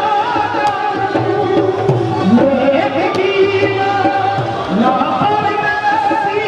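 Music: a singing voice holds long notes and slides between them over light percussion.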